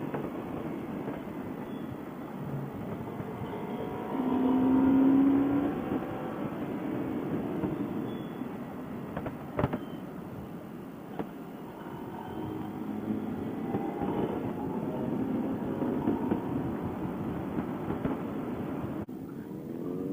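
Motorcycle engine running on the move, its pitch rising and falling with the revs, under wind noise, heard through a helmet intercom microphone with a muffled, narrow sound. A louder steady tone stands out for a couple of seconds about four seconds in, and there is a single click near the middle.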